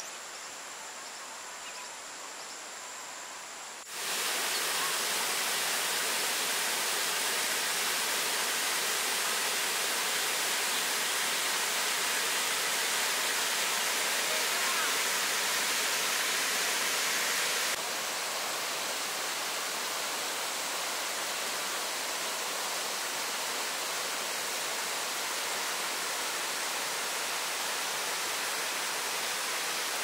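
A waterfall pours over a rock ledge into a pool, making a steady rushing of water. It comes in suddenly about four seconds in, after a few seconds of quieter outdoor ambience. It drops slightly in level about eighteen seconds in.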